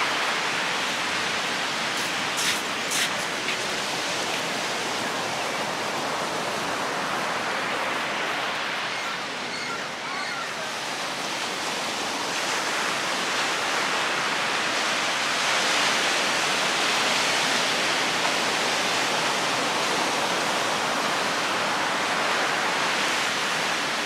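Ocean surf breaking on a sandy beach: a steady wash of breaking waves and white water that eases about ten seconds in, then swells again as the next set rolls in. A few faint clicks come about two to three seconds in.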